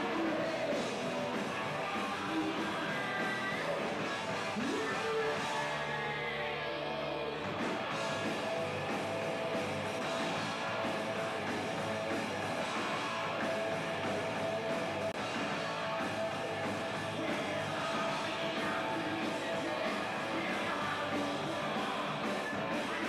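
Hard rock band playing live: electric guitars over bass and drums.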